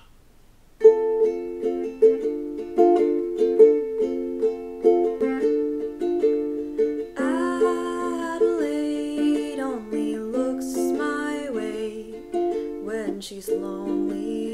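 Ukulele played in a steady rhythm of chords, starting about a second in. A woman's singing voice joins the ukulele about seven seconds in.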